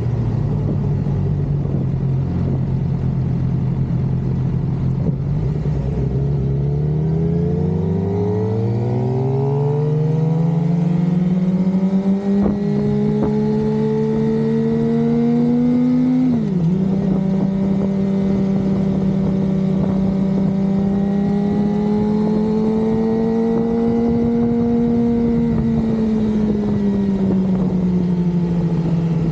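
Suzuki GSX-R 600's inline-four engine running while the bike is ridden: it holds low steady revs, then climbs slowly in pitch from about seven seconds in. About halfway there is a quick dip at an upshift, then a steady cruise, with the revs easing off near the end.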